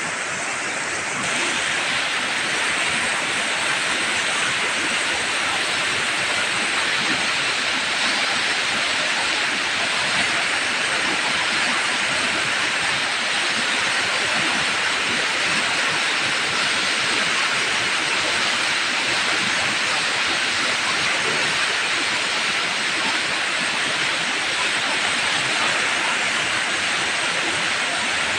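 A river in flood after heavy rain, its fast, muddy water rushing and churning over rocks in a steady rush of water noise.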